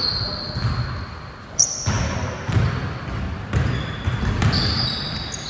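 A basketball bouncing on the court during a game, several irregular thuds, with short high squeaks from sneakers on the floor.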